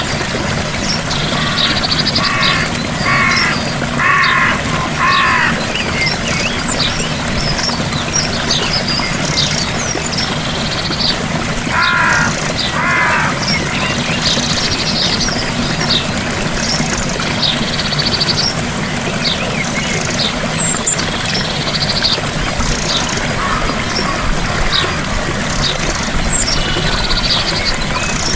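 Gentle waterfall running steadily, with many short, high birdsong chirps over the water. A harsher call sounds four times in quick succession a few seconds in, and twice more near the middle.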